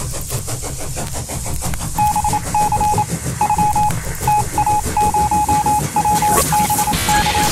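Electronic beeps at one steady pitch, keyed on and off in short and longer pulses in irregular groups like Morse code, starting about two seconds in over a low, steady noisy hum. A brief rising sweep comes near the end.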